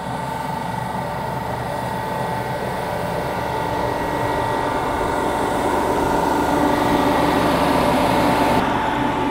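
Fan-type snow cannon running: a steady whine over a rushing blast of air, growing louder until about eight seconds in.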